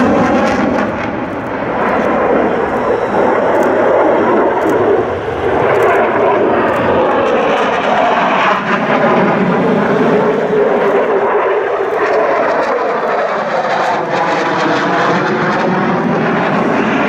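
Belgian Air Force F-16 Fighting Falcon's single jet engine running at high power through a display manoeuvre, with the afterburner lit at first. It is a continuous loud jet noise whose tone sweeps up and down as the aircraft moves across the sky.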